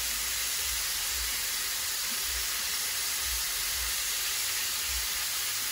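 King prawns frying in olive oil in a non-stick frying pan, a steady sizzling hiss.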